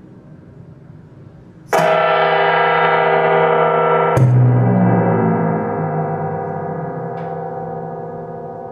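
Two strikes on a resonant metal percussion instrument, gong-like, the second about two and a half seconds after the first and deeper. Each rings on with many tones and slowly fades, with a light tap near the end.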